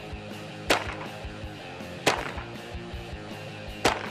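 Three single shots from a GSG STG44 replica rifle in .22 LR, fired semi-automatically, each a short sharp crack, about a second and a half apart.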